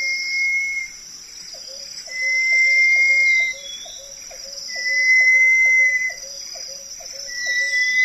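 Crested partridge (roul-roul) calling: a long, even whistle repeated four times, about two and a half seconds apart. Under it runs a fast train of soft low clicks, with a steady high hiss above.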